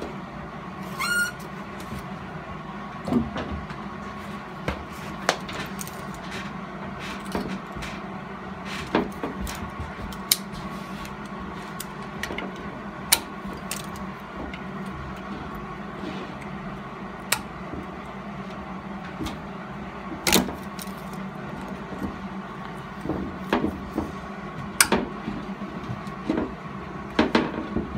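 Scattered sharp metallic clicks and taps as a hand tool works at a weld-built-up broken exhaust manifold stud on an aluminium cylinder head. Under them runs a steady low hum.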